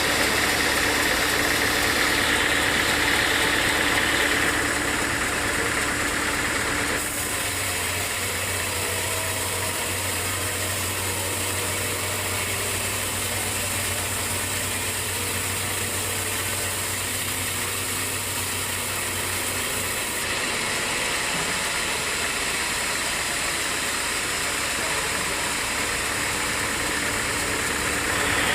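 Engine-driven sawmill machinery running steadily, with a steady low hum that comes in about a quarter of the way through and drops away about two-thirds of the way through.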